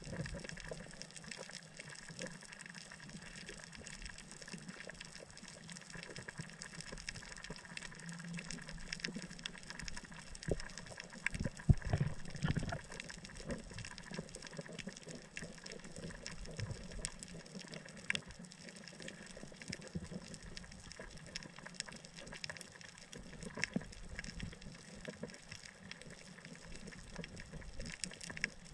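Underwater reef ambience heard from below the surface: a steady watery hiss with many faint crackling clicks, and a few low thumps partway through.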